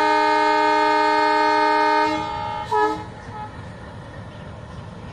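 Indian Railways locomotive horn: one long steady blast that drops in level about two seconds in and stops, then a short toot about a second later. After it comes the low rumble of the train's coaches rolling past.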